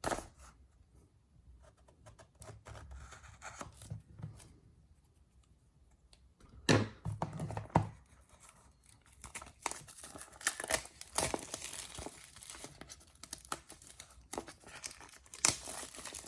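Plastic wrapper being torn and crinkled off a product box: faint rustling at first, two sharp tears about seven and eight seconds in, then steady crackly crinkling.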